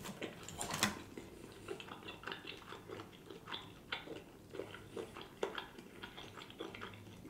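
Close-miked mouth sounds of a person chewing barbecue rib meat: irregular soft wet smacks and clicks, with one louder smack just before a second in.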